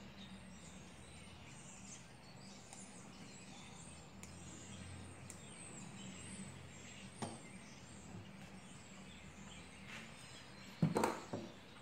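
Low-level handwork: needle-nose pliers fiddling a small steel piston-pin circlip into its groove on a motorcycle piston, with a small click about seven seconds in and a sharper knock near the end. Faint birds chirp in the background over a low hum.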